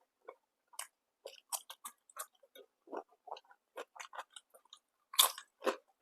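Close-miked chewing and biting of food: irregular wet mouth smacks and small crunches, with a louder burst of crunching about five seconds in.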